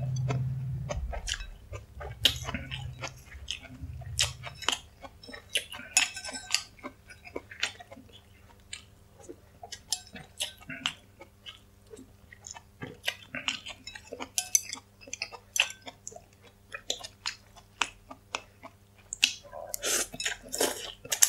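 Close-up eating sounds of noodle soup: wet chewing and mouth clicks, with chopsticks and a metal spoon tapping and scraping in the bowl, and a noodle slurp near the end. A low hum dies away in the first two seconds.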